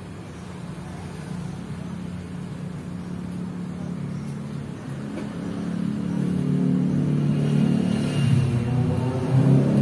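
A motor vehicle engine running, a steady low hum that grows louder over the second half.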